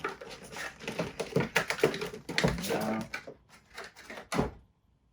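Collectible-figure packaging being handled and opened: an irregular run of clicks, taps and rustles, ending in a sharp knock about four seconds in.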